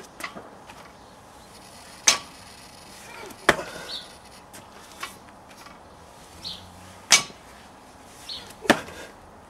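Loaded barbell knocking and clanking during repeated snatches: the iron plates rattling on the bar and the bar touching down on the rubber mat. There are four loud strikes and a few lighter clicks between them.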